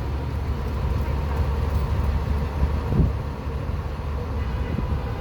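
Steady low rumble of city street traffic, with no dial tone heard.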